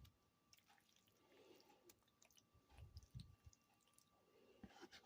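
Near silence, with faint soft clicks and a few dull low bumps from hands laying cheese onto a lasagna.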